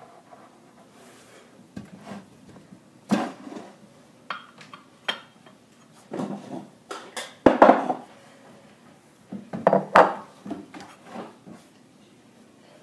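Glassware and a glass pickle jar handled on a kitchen counter: shot glasses set down, the jar fetched, its lid taken off and the jar lifted. Irregular knocks and clinks, the loudest about seven and a half and ten seconds in.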